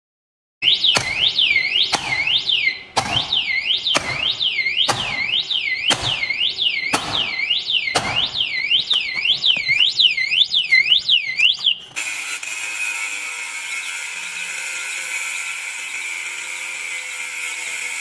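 KVYX XA6 disc lock's built-in alarm going off under attack: a loud siren sweeping up and down, with a sharp knock about once a second. About twelve seconds in it cuts off suddenly and an angle grinder cutting into the lock takes over with a steady whine.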